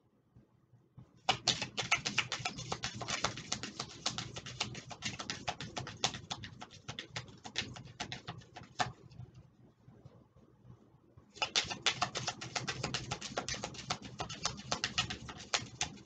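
A deck of oracle cards being shuffled by hand: a rapid run of card clicks and flutters that stops for about two seconds past the middle, then picks up again.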